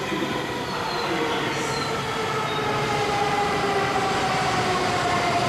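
N700S Kamome shinkansen train running into a station platform. A steady rushing noise grows slowly louder, with a whine that slowly falls in pitch as the train slows.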